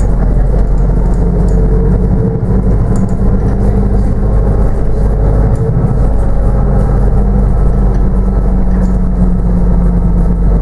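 Inside a New Routemaster double-decker bus on the move: a steady low engine hum and road noise, heard from the passenger cabin.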